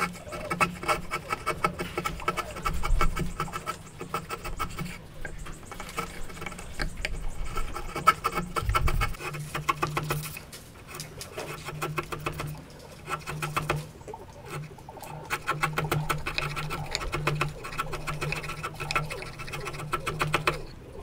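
Hand chisel paring wood, a crackly scraping made of rapid fine ticks as the edge slices shavings, in a series of strokes with brief pauses.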